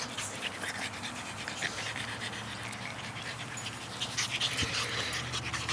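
Boston Terrier puppies panting while they play.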